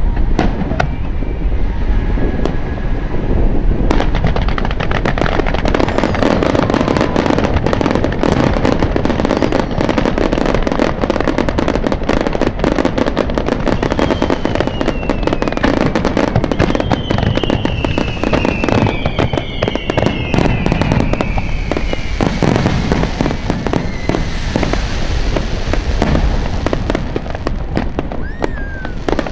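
Aerial firework shells bursting in a dense, continuous barrage of bangs and crackling over a steady rumble. Several falling whistles sound through the middle.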